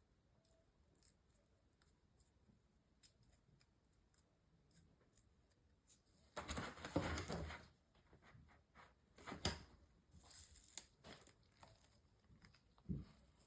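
Quiet handling noises from laptop repair work: faint light clicks, then a rough tearing or scraping rustle lasting over a second about six and a half seconds in, shorter ones a little later, and a low thump near the end.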